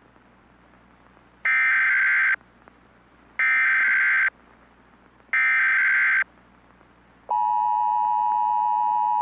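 Emergency Alert System header: three short bursts of buzzy digital data tones, each about a second long and a second apart, followed about seven seconds in by the steady two-tone EAS attention signal.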